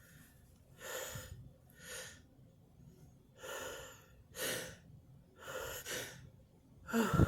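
A woman's sharp breaths and gasps through the nose and mouth, about six in a row, roughly a second apart, with the loudest near the end. They are her reaction to pulling hairs from her nose, which makes her eyes water and nearly makes her sneeze.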